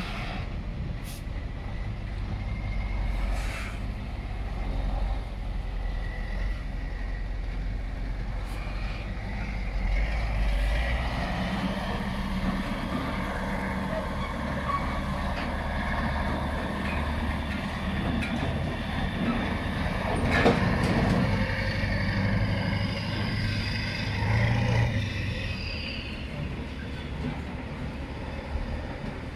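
Heavy military truck towing a loaded low-loader trailer drives past, its engine running steadily and growing louder in the middle as it comes closest. About two-thirds of the way through there is one short, sharp noise.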